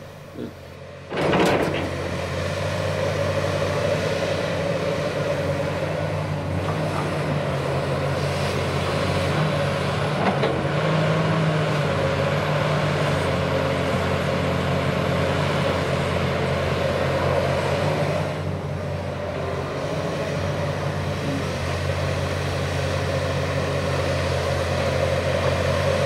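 Diesel engine of a Komatsu PC360LC-10 hydraulic excavator running steadily under load as it digs and swings dirt, cutting in suddenly about a second in.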